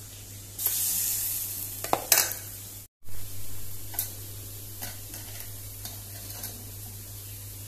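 A ladle stirring and clinking in a steel bowl of gram-flour batter over a loud hiss. After a sudden cut about three seconds in, hot oil in a kadhai sizzles faintly with a few small pops.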